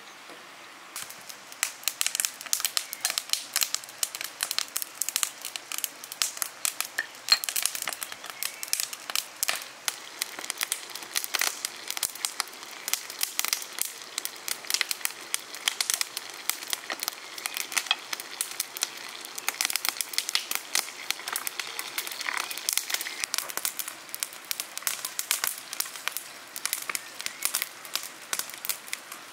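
Sliced potatoes frying in hot oil in a cast-iron pan: a dense crackling sizzle with sharp spattering pops, starting about a second in.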